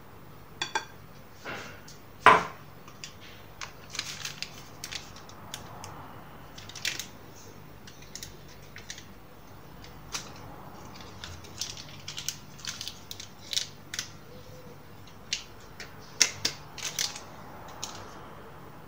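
Scattered small clicks, taps and paper rustles as ingredients are added by hand to a mixing bowl: flour tipped in, then baking powder emptied from paper sachets. A sharp knock about two seconds in is the loudest sound.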